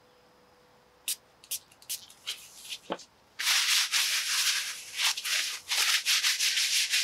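Disposable gloves rustling and crackling as they are pulled onto the hands. From about three seconds in, gloved hands rub together in a steady rasping rub, pulsing about four times a second.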